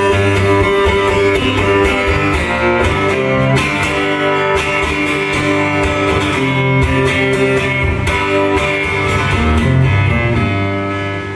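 Amplified acoustic guitar playing an instrumental passage: strummed chords and ringing notes, with no singing.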